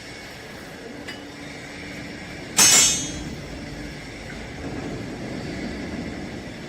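A vertical lifting chamber baler runs with a steady machine hum. About two and a half seconds in there is one sudden loud bang, which rings and fades over about half a second.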